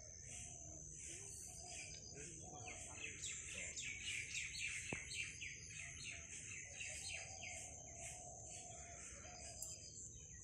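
Several birds singing and calling, with a fast run of short falling notes about three to six seconds in, over a steady high-pitched whine.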